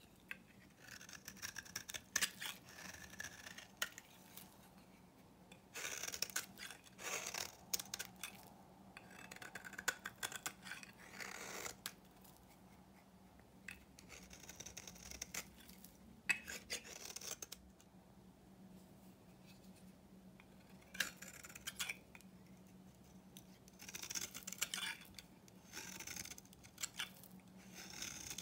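Snap-off utility knife blade scraping and shaving a bar of old soap into crumbly shavings, in several bursts of quick, raspy strokes with quiet gaps between.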